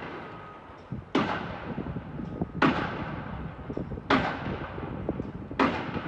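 Heavy construction impacts from pile driving across the water: four blows evenly spaced about a second and a half apart, each with a short ringing tail.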